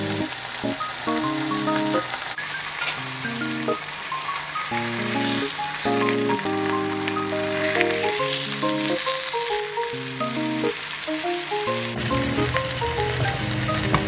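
Beef burger patties sizzling and frying in a hot grill pan, a steady crackling hiss, under soft melodic background music.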